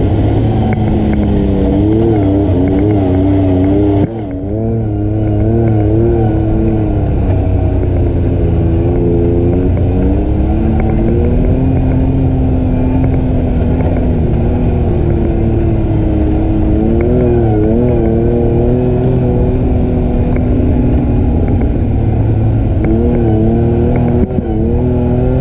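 ATV engine running under changing throttle, its pitch wavering up and down over a heavy low rumble, with a brief drop in level about four seconds in.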